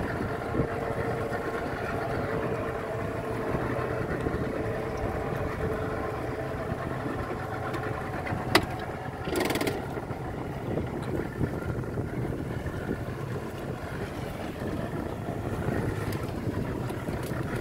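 Small motorboat's engine idling with a steady hum, over a wash of wind and water noise. A sharp tap about eight and a half seconds in, then a brief hiss about a second later.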